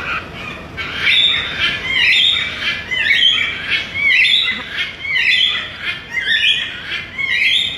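Blue-and-yellow macaw giving a run of loud, harsh squawks, about one a second, starting about a second in.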